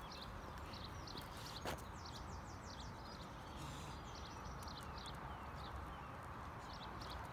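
Small birds chirping, a steady stream of short, high, falling notes, over a low steady rumble. A single sharp tick comes about a second and a half in.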